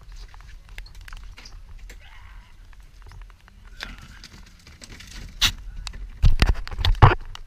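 Knocks and thumps of a gaffed wahoo and the gaff striking the fibreglass fish box as the fish is dropped in, with the loudest group near the end, over a steady low rumble.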